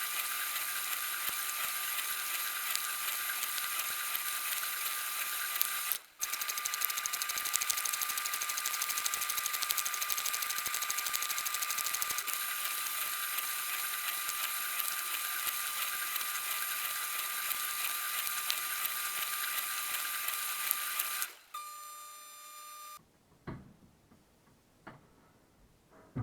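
Dishwasher running its wash cycle, heard from inside the machine through the action camera's waterproof case: a steady hiss of spraying water over a steady whine, with a brief dropout about six seconds in. Near the end the spray cuts off, the whine runs on for a moment and stops, then a few faint clicks.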